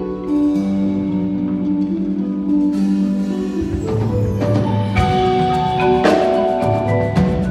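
Indoor percussion ensemble playing: held, ringing chords from the front ensemble's mallet and keyboard instruments. About halfway through, the texture turns busier and sharp drum strikes come in.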